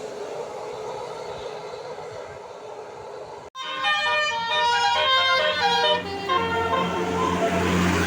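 Road traffic noise, then after an abrupt cut about three and a half seconds in, a tour bus's 'telolet' multi-tone musical horn plays a fast tune of stepped notes. The bus's engine hums underneath from about halfway through.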